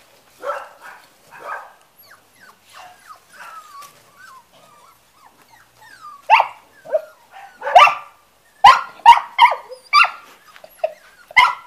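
Five-week-old Hungarian puli puppies yipping and barking as they play-fight. A few quieter yips and thin whines come first, then about six seconds in a quick run of sharper, louder high barks.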